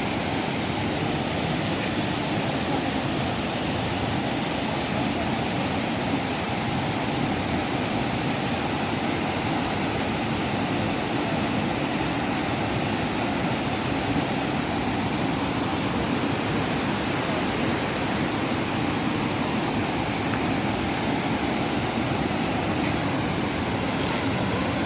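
Waterfall swollen by monsoon rain, a steady rushing of falling water.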